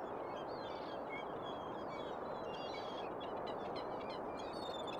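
Many short, high bird chirps over a steady, even hiss of outdoor background noise.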